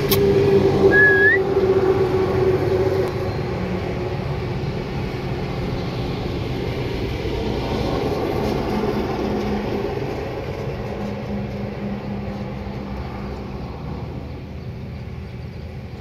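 Steady low rumble and hum of background noise, fading a little over the last few seconds, with one short rising whistle about a second in.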